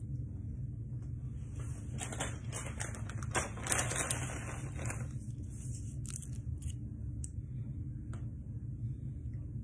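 Steady low room hum with scattered clicks, and a burst of rustling and scraping from about two seconds in, lasting about three seconds.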